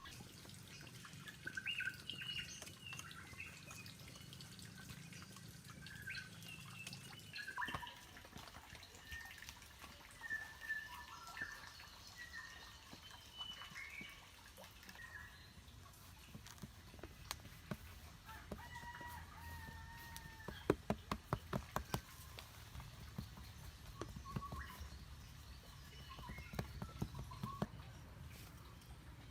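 Birds calling, among them a long held call like a rooster's crow. Midway through comes a quick run of about ten sharp taps.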